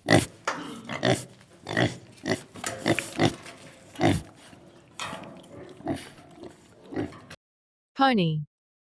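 Pig grunting: a quick series of short grunts, about two a second, that stops suddenly about seven seconds in.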